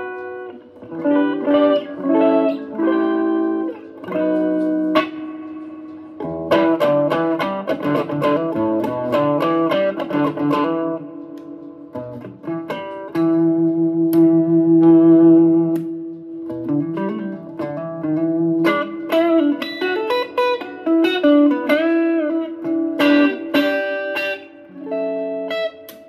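Les Paul-style electric guitar with humbucking pickups played solo: picked single-note lead lines with string bends and a long sustained note about halfway through.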